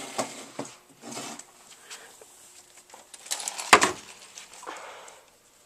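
Handling noises: objects shuffled and scraped on a surface, with one sharp knock about three and a half seconds in.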